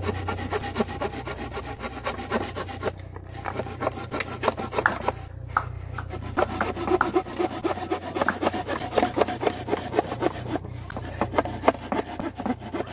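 Silky Pocket Boy folding saw cutting through a wooden board in quick short back-and-forth strokes, pausing briefly a few times.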